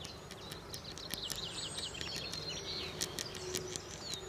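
Birds singing: a quick run of sharp clicks and short repeated whistled notes that swoop down in pitch, over a faint outdoor hiss.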